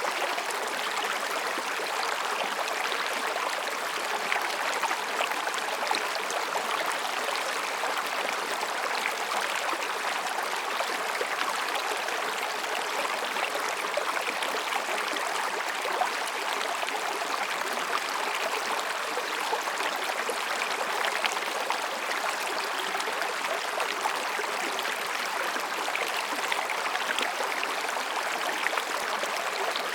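Mountain stream babbling over and between rocks: a steady, unbroken rush of flowing water.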